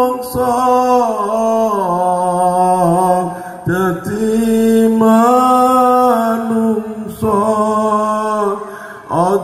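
A man singing a syi'ir solo and unaccompanied into a microphone: long, held, gliding notes in three phrases with short breaths between them.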